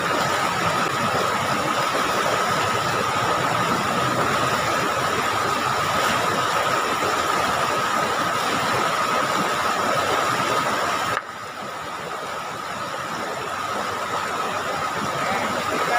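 Steady rush of river water over rocky rapids, with a thin, constant high-pitched tone running through it. The whole sound drops abruptly about eleven seconds in and then slowly builds back up.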